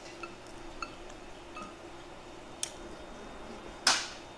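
Eating utensils clinking against dishes during a meal: a few light ticks, a sharper click, then a louder clink near the end.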